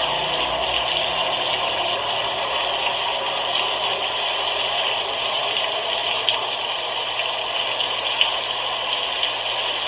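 Steady rainfall: an even hiss of falling rain with a few faint drop ticks.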